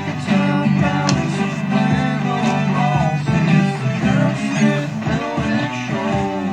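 The channel's theme song: guitar-led music with a steady beat.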